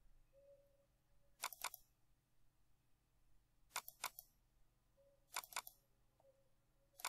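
Computer mouse button double-clicking three times, each a pair of sharp clicks in quick succession, with a single click near the end, over faint room hum.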